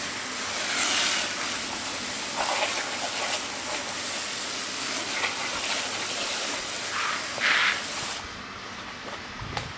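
Garden hose spray nozzle hissing as its jet of water rinses a car wheel, swelling louder a few times as the spray moves over the rim. The spray cuts off about eight seconds in, and a low thud follows just before the end.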